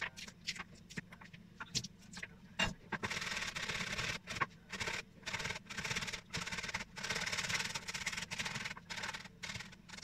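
A knife cuts a green pepper over a bowl in a few sharp clicks. From about three seconds in, a tomato is rubbed up and down a metal box grater in a run of scraping strokes.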